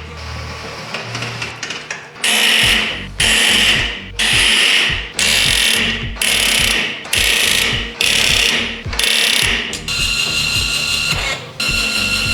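A power tool run in a series of short bursts, about one a second, then more steadily near the end, over background music with a steady beat.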